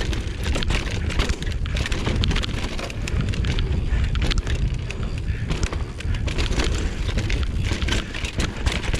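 Mountain bike descending rough trail: wind buffeting the action-camera microphone over a steady rumble, with frequent clicks and rattles from the bike. The rear derailleur's clutch is switched off, so the chain is free to slap against the frame.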